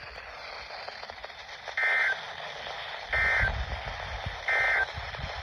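Emergency Alert System end-of-message data bursts: three identical short, buzzing digital bursts about a second apart, marking the end of the alert. They are heard over a steady radio hiss.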